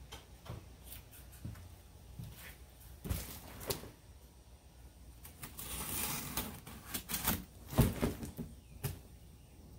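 A cardboard shipping box being handled and its packing tape slit open with a small blade: scraping and cutting noise along the tape, with several short knocks as the box is gripped and moved. The loudest knock comes about eight seconds in.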